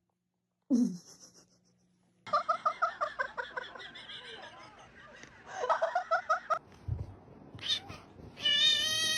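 A person laughing in quick rhythmic bursts, then a cat giving one long, steady meow near the end.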